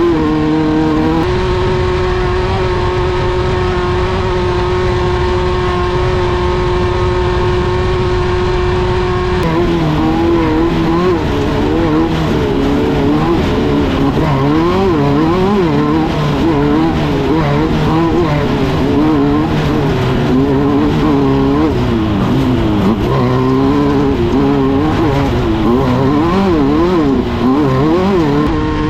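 A 1600-class off-road race car's air-cooled 1600cc Volkswagen engine running hard. It holds a steady pitch for about eight seconds, then its revs swing quickly up and down.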